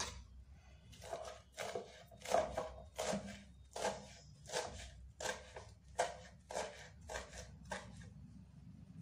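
Kitchen knife chopping fresh fenugreek leaves against a wooden cutting board, in steady strokes about two a second.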